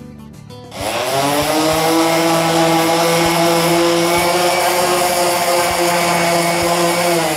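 DeWalt random orbital sander spinning up about a second in, then running steadily with a hum and whine as it sands the layer lines off a 3D-printed plastic part, winding down near the end.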